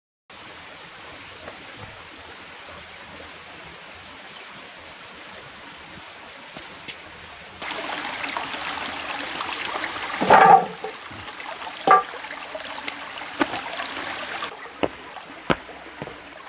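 Shallow stream trickling over stones, growing louder about halfway in and dropping back near the end. Several footsteps of rubber boots on stones and grass thud over it, the loudest a little after the middle.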